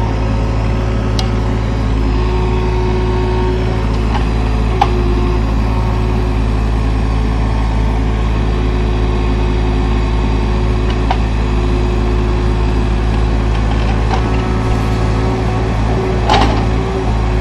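Heavy earthmoving machine's engine running steadily under a constant low drone, with scattered clicks and knocks, the loudest near the end.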